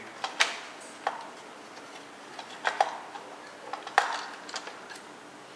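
Hard plastic clicks and knocks as a Roomba 500-series side wheel module is squeezed into its bay in the robot's underside: about half a dozen scattered sharp clicks, the loudest about four seconds in.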